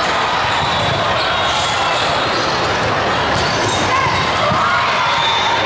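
Volleyballs being struck and bouncing on a hard court floor, over the steady chatter of players and spectators echoing in a large hall.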